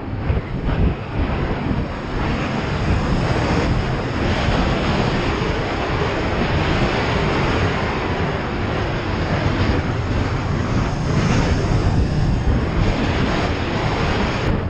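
Honda CB500X parallel-twin motorcycle engine running while under way, mixed with a steady rush of wind noise on the camera microphone.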